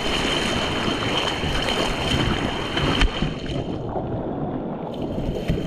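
Rushing whitewater of a mountain river around an inflatable raft, with wind buffeting the microphone. A single knock about halfway through, after which the sound turns duller for a couple of seconds.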